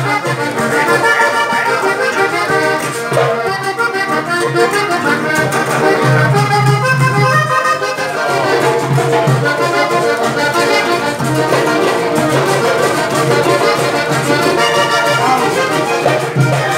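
Button accordion playing an instrumental passage of a vallenato merengue, melody notes over steady low bass notes.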